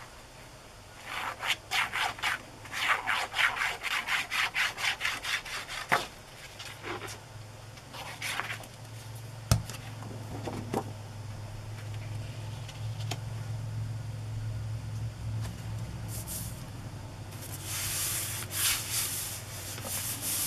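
Hands rubbing paper and fabric down onto a book cover in quick, even strokes, about four a second for several seconds. A few more strokes follow, then another burst of rubbing near the end.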